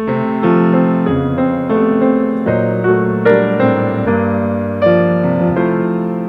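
Piano playing, a chord-and-melody passage with notes changing about every half second.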